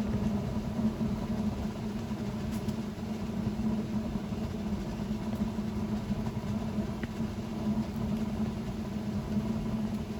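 A steady low drone over a noisy rumble, with no clear pops or crackles.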